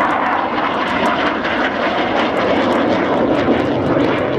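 Hawker Hunter jet flying a display pass overhead, its jet engine giving a steady, loud roar.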